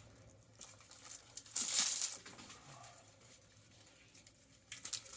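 Stripped plastic wire insulation crinkling and scraping as copper wire is pulled through a homemade blade stripping jig, in two short bursts: one about a second and a half in, the other near the end.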